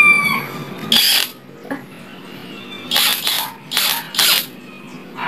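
The end of a rooster's crow fades out in the first moment. Then come a few short bursts of clatter and rustle, once about a second in and three times around the middle, as a cordless impact wrench and its parts are handled.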